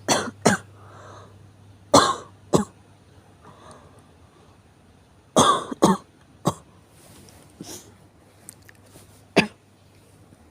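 A person's morning coughing fit on waking: sharp coughs in pairs and threes, about eight in all, with faint breaths between them.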